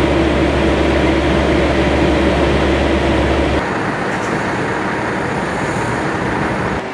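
Steady low drone of an idling semi-truck diesel engine. It cuts off abruptly about three and a half seconds in and gives way to an even rushing hiss of open-air noise.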